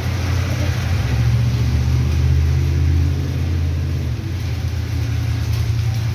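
Cars passing on a rain-soaked street: a low engine and tyre rumble swells over the first second, is loudest for a few seconds, and eases about four seconds in, over a steady hiss of rain.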